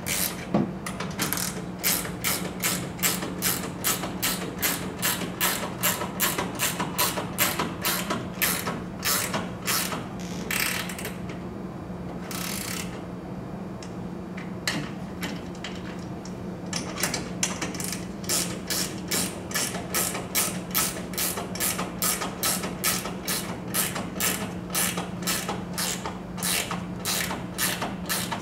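Hand ratchet wrench clicking in a steady rhythm, about three clicks a second, as clamp bolts are tightened down. The clicking pauses for a few seconds midway, then resumes.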